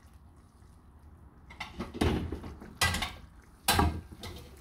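Three sharp clattering knocks of a frying pan and its serving spoon being handled on a gas stove, the pan set back down on the burner grate, coming about two, three and four seconds in after a quiet start.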